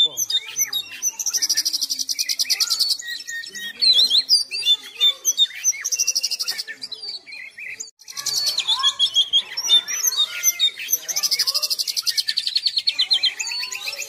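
Oriental magpie-robin (kacer) singing nonstop: a varied stream of loud whistles, chirps and slurred notes, broken several times by fast, buzzy trills, with a brief pause about eight seconds in.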